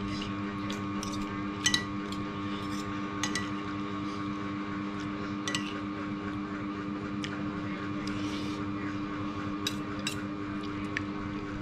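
Metal spoon and fork clinking and scraping against a plate in several sharp, spread-out clinks, over a steady hum.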